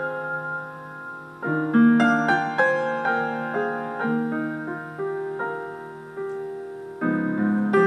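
Slow solo piano music: notes and chords struck and left to fade, with a short lull about a second in and new chords near the end.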